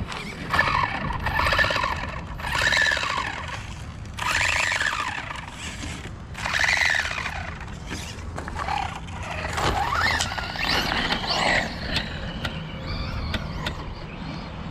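Brushless electric motors of Traxxas Slash 2WD VXL radio-control trucks whining in a series of short bursts, the pitch rising and falling with the throttle.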